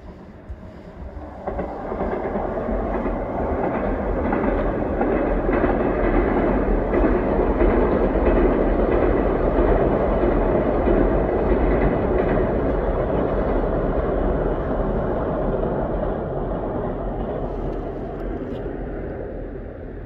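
A train crossing a railway bridge over a river. The sound builds over the first two seconds, is loudest around the middle, then slowly dies away as the train passes.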